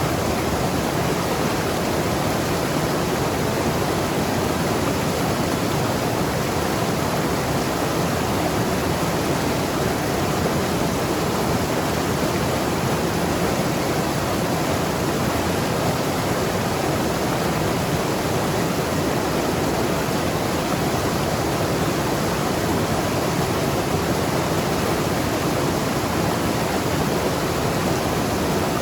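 Mountain river flowing and tumbling over rocks, a steady even rush of water with a gurgle in it.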